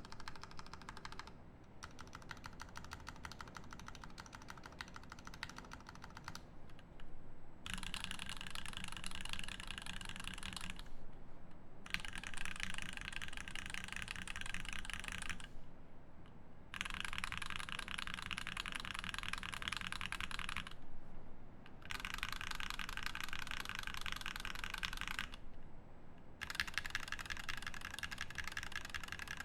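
Godspeed75 mechanical keyboard with a brass plate, lubed Zeal Turquoise Tealio linear switches and GMK keycaps, typed on fast and continuously. The keystrokes come in runs of a few seconds, broken by brief pauses.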